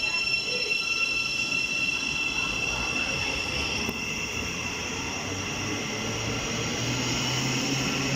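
Thameslink Class 700 electric multiple unit moving along the platform, with a steady high-pitched whine over a low hum that rises in pitch over the last few seconds as the train picks up speed.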